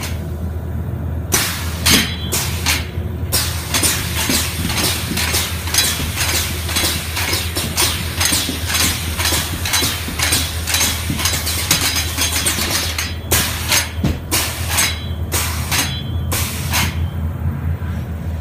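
Dense, rapid metallic clicking and clattering over a steady low hum, from a motorized kinetic sculpture twisting a bundle of wires inside a suspended metal frame. The clicking starts about a second in and thins out near the end.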